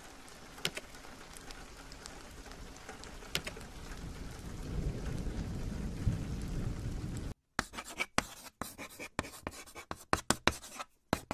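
Steady hiss of falling rain with a few sharp ticks and a low rumble swelling partway through. About two-thirds in, the rain cuts off abruptly, and a quick run of short, scratchy strokes like a pencil sketching follows.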